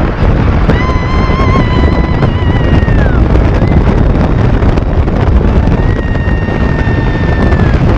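Wind rushing and buffeting over the microphone as the open-top Test Track ride vehicle runs at high speed on its outdoor track. Over the rumble, two long, high, wavering tones sound: one about a second in, lasting about two seconds and sliding down as it ends, and another near the end.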